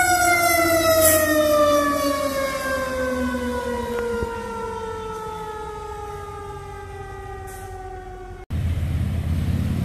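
Fire engine siren winding down: one long, slow fall in pitch that fades as it goes. About eight and a half seconds in it cuts off suddenly, and a low vehicle rumble takes over.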